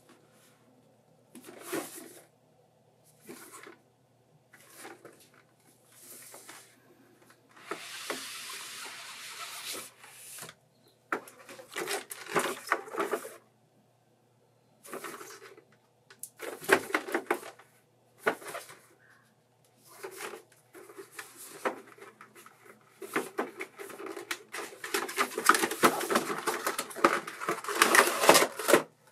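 Gloved hands handling a cardboard figure box: scattered taps, scrapes and rubs, with a longer steady rub of cardboard sliding on cardboard about eight seconds in. Near the end, louder crinkling and clattering as a clear plastic blister tray is drawn out of the box.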